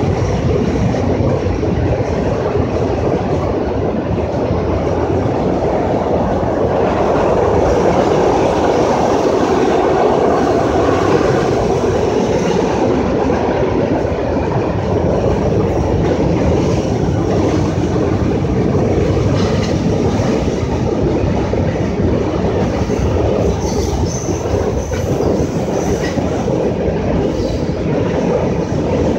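Freight cars rolling steadily across a steel girder railway bridge: a continuous heavy rumble of wheels on rail, with brief high wheel squeals toward the end.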